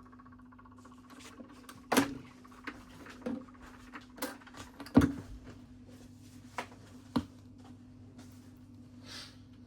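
Stylus tracking the lead-in groove of a 12-inch 45 rpm vinyl single: scattered clicks and pops over a steady low hum, with louder pops about two, five and seven seconds in.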